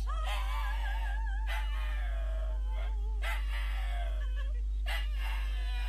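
A dog howling, several long wavering howls one after another, over a steady low hum.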